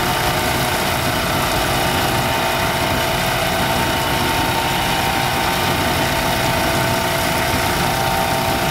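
Homemade lapidary polishing machine's electric motor running steadily, spinning its sanding drum with no stone against it: a constant hum with a few steady tones.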